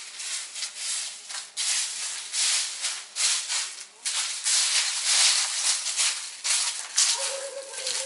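Footsteps crunching over dry leaves and grit on paving, about two steps a second, with a faint whining tone near the end.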